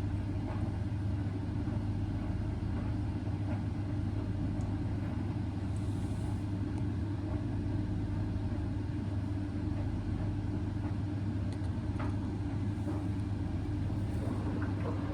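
Indesit washing machine running in the main wash of its 85-degree baby cycle: a steady low hum and rumble as the drum turns the load in a very high water level.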